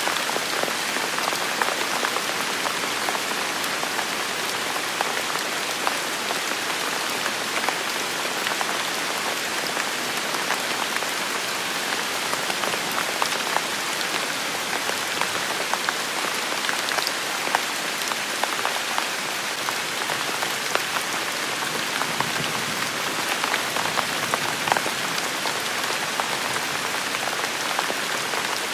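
Steady rain falling, a dense even hiss with many small drop ticks scattered through it.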